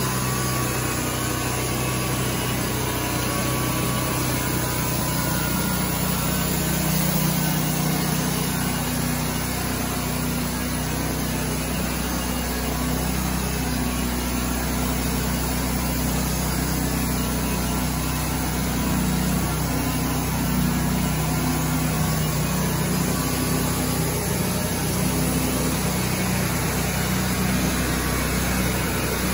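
Engine of a Range Road RR5032 portable band sawmill running steadily while its band blade saws lengthwise through a squared log.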